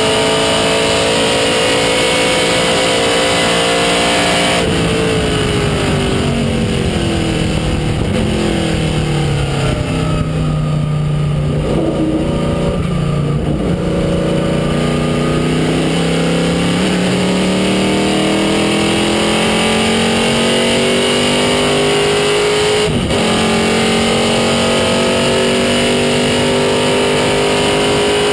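Chevrolet Monza race car's V8, heard from inside the cockpit. It runs at high revs, then lifts about five seconds in and steps down through the gears with a falling note. It pulls from low revs with a rising note, with a quick gearchange about 23 seconds in, and is back at high steady revs near the end.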